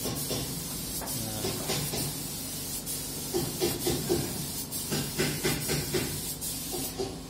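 Compressed-air spray gun hissing steadily as paint is sprayed onto the inside walls of a steel container booth during finishing. The hiss cuts off near the end.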